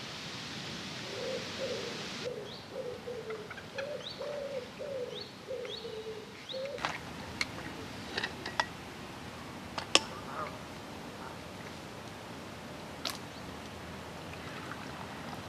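A pigeon cooing a run of low, repeated notes for the first six seconds or so, with small birds chirping higher above it. After that comes a handful of sharp clicks and knocks, the loudest about ten seconds in.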